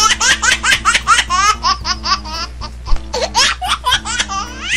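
A laughter sound effect: a quick, unbroken run of high-pitched laughs, about four or five a second, over low background music.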